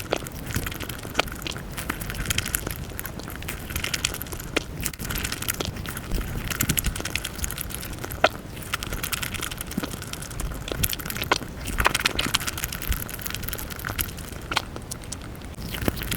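Close-miked eating of Nutella pancake crepes: a dense, continuous run of chewing, wet mouth clicks and bites.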